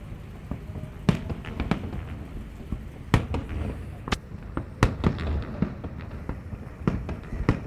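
Fireworks display: a string of sharp bangs and cracks at uneven intervals, several loud reports about a second apart, over a low rumble of continuing bursts.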